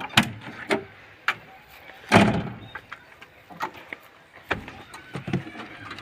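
Key clicking and rattling in the lock of an excavator's steel cab door, then the latch releases and the door opens with a loud clunk about two seconds in. Scattered knocks and clicks follow as someone steps up into the cab.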